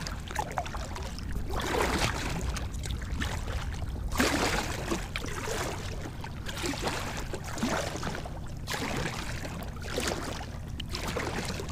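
Kayak paddle strokes: the blades dip into the lake in a steady rhythm, each stroke a swish and splash of water, about one a second, over a low steady rumble.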